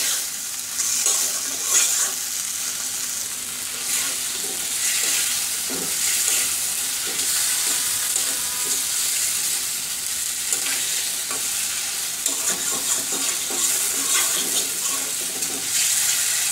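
Pieces of bain fish and spice paste sizzling in mustard oil in a pan while being stirred with a spatula, the masala being fried down (kosha). The sizzle swells and eases as the pieces are turned, with occasional scrapes and knocks of the spatula on the pan.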